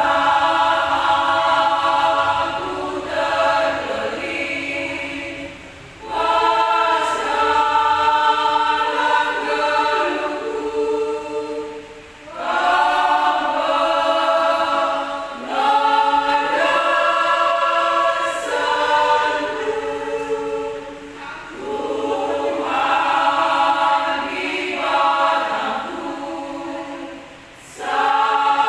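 Women's church choir singing a hymn in harmony, in long phrases with short breaks for breath between them.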